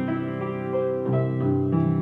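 Grand piano playing a slow, melodic ballad, with a new note or chord struck every half second or so.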